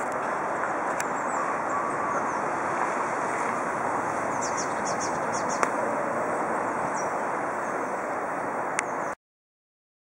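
Steady rushing of flowing river water, with small birds chirping high over it, a quick run of short notes about halfway through. The sound cuts off suddenly about nine seconds in.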